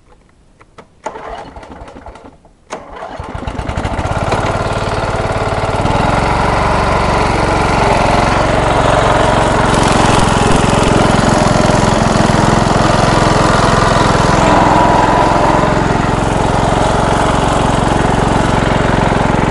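MTD riding lawn mower's engine starts up about three seconds in after a few faint clicks, then runs loud and steady at high throttle.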